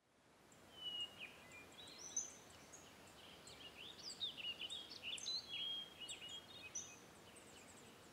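Songbirds chirping and singing, many short high chirps and quick sweeping notes, over a faint steady hiss of outdoor ambience that fades in at the start.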